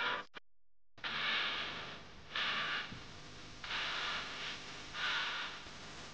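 A short sharp snap at the very start as the bow is loosed. From about a second in, a person breathing in a steady rhythm, one breath about every second and a half.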